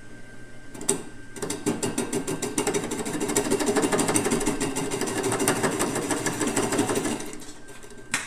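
Turning tool cutting a driftwood burl spinning on a wood lathe: a rapid, steady clatter as the tool bounces on the uneven, soft wood. The clatter starts about a second and a half in and stops near the end, with a single knock before and after it. The soft wood is taken to be a little rotten.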